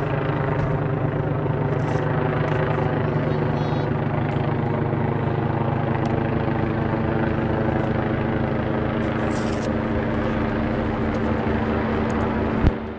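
Emergency medical helicopter flying overhead, its rotor beating in an even rhythm over the steady drone of the engine. The sound cuts off suddenly near the end.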